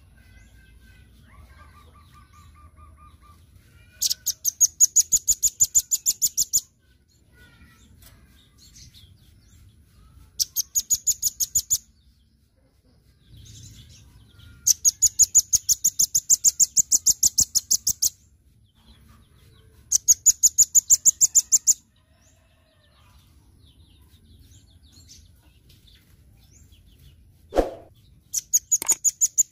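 Caged velvet-fronted nuthatch singing: five loud, very high rapid trills of repeated notes, each one to three seconds long, with fainter chirps between them. A single sharp knock comes near the end.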